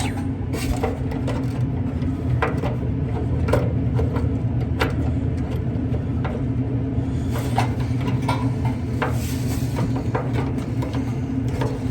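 Scattered light clicks and knocks of dryer parts being handled during the idler pulley swap, over a steady low hum.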